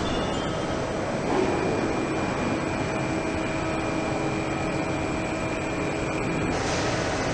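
Steady hum and whine of automated production-line machinery in an electric-motor assembly hall, with a high steady tone that cuts off near the end.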